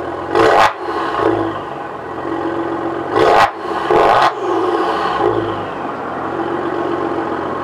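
Maserati Quattroporte engine idling through its stock sport exhaust with the exhaust valves open (Sport mode), blipped into three short revs, about half a second, three seconds and four seconds in, with a couple of smaller throttle blips between them.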